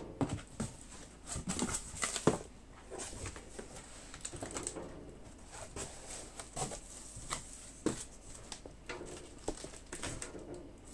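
Rustling, light knocks and irregular clicks of packaging and kit contents being handled as a model ship kit box is unpacked, with one sharper knock about two seconds in.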